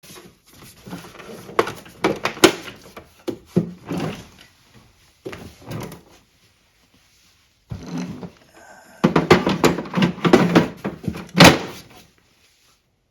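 Knocks, clicks and rattles of plastic casing parts being handled and fitted together as a dehumidifier's control panel is reassembled, in two busy spells with a break between them.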